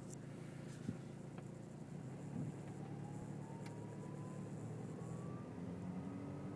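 Straight-piped VW 2.0 TDI four-cylinder diesel running just after a cold start, with a thin turbo whistle that slowly rises in pitch from about two seconds in.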